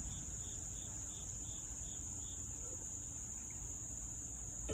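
Crickets trilling steadily in one continuous high-pitched drone. A second insect adds a faint pulsed chirp, about three a second, that stops about halfway through.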